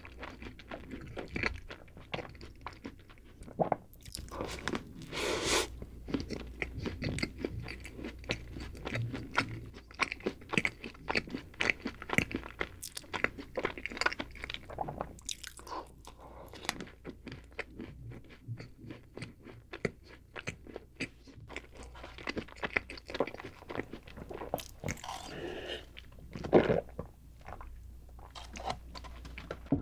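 Close-miked chewing of a chocolate-coated snack cake: wet mouth sounds with crisp crackles of the chocolate coating, irregular throughout. Near the end come louder gulps as chocolate milk is drunk from a carton.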